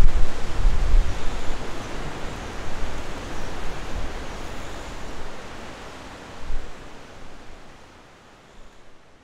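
Wind outdoors: a steady rushing hiss with low rumbles of wind buffeting the microphone, fading out gradually.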